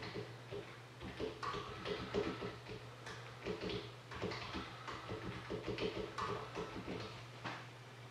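Light, irregular clicking of a computer keyboard being typed on, over a steady low electrical hum.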